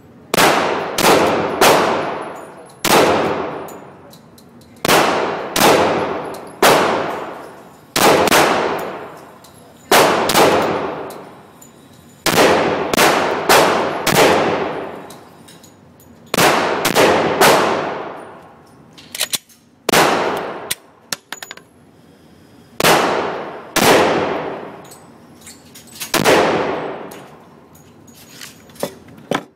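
Glock 20 SF pistol firing 10mm Auto rounds: a long string of shots at an uneven pace, singles and quick pairs and triples with short pauses, each shot followed by a long echoing tail.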